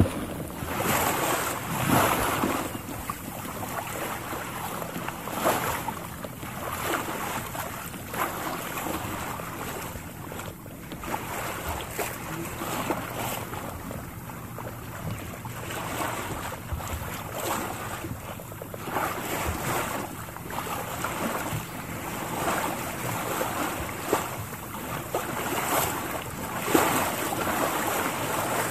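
Sea waves washing onto a shore, with wind buffeting the microphone and footsteps of someone walking along the beach.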